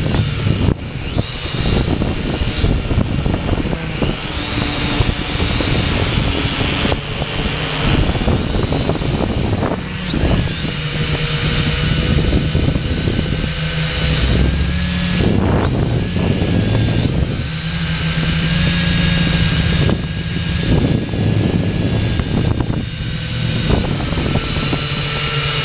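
Xtreem Fly Eye camera drone's electric motors and propellers whining in flight, heard close up from its onboard camera. The whine's pitch shifts up and down over a rough rumble of wind on the microphone.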